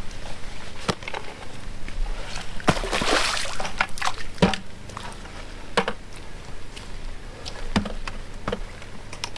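Hand digging and dumping of wet dirt: scattered knocks and scrapes, with a short rushing pour about three seconds in.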